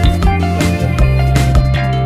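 Background music with a bass line, guitar and a steady drum beat.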